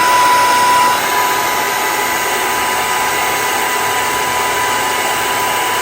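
Handheld hair dryer running steadily with a constant whine, blowing on the glued hairline of a synthetic wig to dry the wig adhesive and clear its white cast. It cuts off suddenly at the very end.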